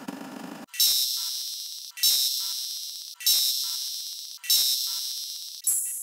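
A bright, high-pitched electronic ding struck over and over, about once every second and a quarter, each strike ringing out and fading before the next, coming faster near the end. Before the first ding, a buzzing noise cuts off suddenly.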